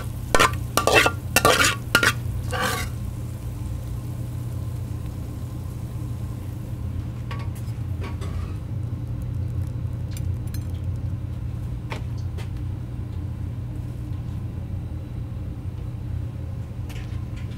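Stir-frying in a wok: a metal ladle strikes and scrapes the wok about six times in the first three seconds, over food sizzling and the steady low rumble of the burner. The sizzle dies down about seven seconds in, leaving the rumble and a few light clinks.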